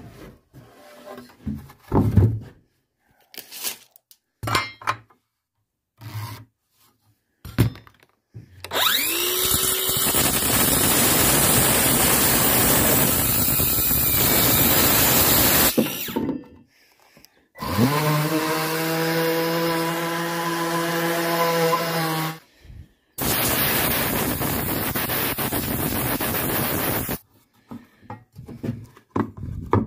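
Craftsman cordless circular saw spinning up with a rising whine and cutting through lumber, in two long cuts of several seconds each. Between the cuts comes a steady-pitched motor hum, and there are short knocks from wood being handled in the first seconds and near the end.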